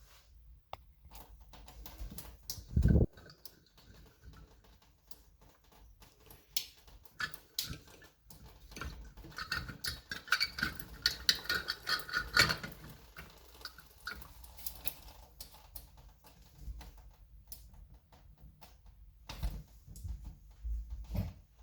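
Irregular small clicks, taps and knocks of parts being handled and fitted by hand, with one louder thump about three seconds in and a busier run of clicking in the middle.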